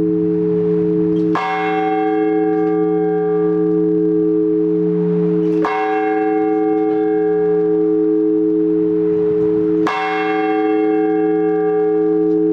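Large Orthodox church bell rung as the blagovest, the single-bell ringing that calls the faithful to the Divine Liturgy. It is struck three times, slowly and evenly about four seconds apart, and each stroke's deep hum rings on into the next.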